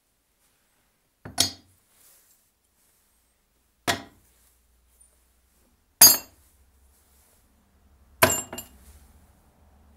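Steel head and small metal fittings of a disassembled butcher axe set down one by one on a board: four sharp metallic clinks about two seconds apart, each ringing briefly, the last with a quick second tap.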